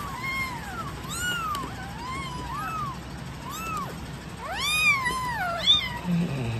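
Very young kitten crying, a string of about nine high mews that each rise and fall in pitch, the loudest ones about two thirds of the way in, as it is held on its back and wiped with a tissue.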